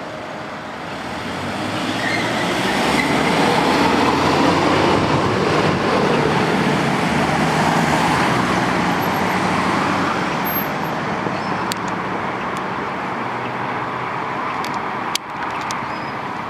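Road traffic noise, a vehicle passing close by: it grows louder over the first few seconds, then fades away slowly. A single sharp click comes near the end.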